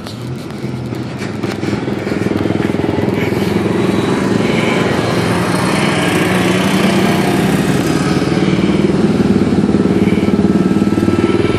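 Engines of several Dodge cars running at low speed as they roll past in a line, growing louder over the first couple of seconds and then steady.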